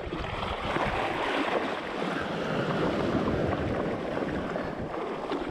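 Shallow surf washing in: a steady rush of water that swells a little through the middle.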